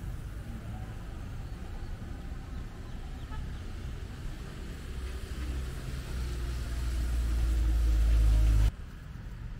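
Steady low engine rumble that swells louder over a few seconds toward the end, then cuts off abruptly.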